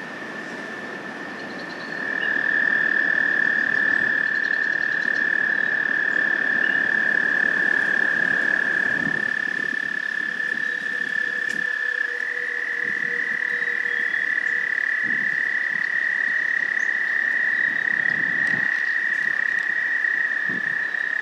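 American toads trilling: long, steady, high-pitched trills that get louder about two seconds in, with another toad taking over at a slightly higher pitch about halfway through.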